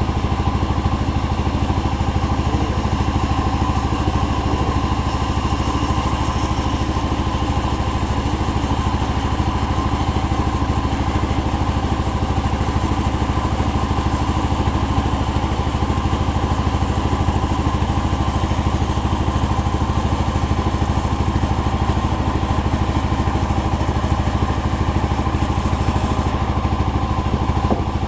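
Chainsaw's small engine running steadily at a constant speed while sawing hardwood.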